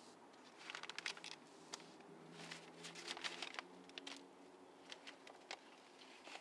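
Paper rustling and crinkling in two short flurries, about a second in and again around the middle, as a paper packet is handled and opened, with a few lighter crackles after.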